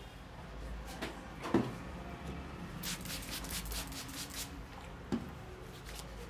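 Head massage handling sounds: hands and a massage tool knocking lightly against the head a few times, the loudest about a second and a half in, with a quick run of rubbing strokes over the hair and skin in the middle.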